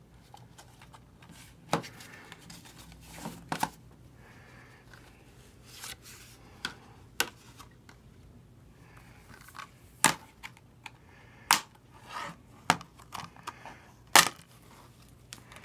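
Plastic Blu-ray cases being handled and opened: scattered short, sharp clicks and snaps of the cases, with faint rustling of plastic wrapping between them.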